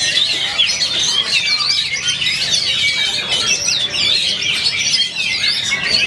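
Many caged Oriental magpie-robins (kacer) singing at once during a songbird contest round: a dense, unbroken chorus of quick, varied whistled phrases and chirps overlapping one another.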